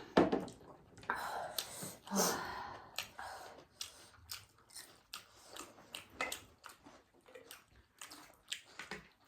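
People chewing and eating, with a string of short mouth clicks and a few longer noisy stretches of chewing in the first three seconds.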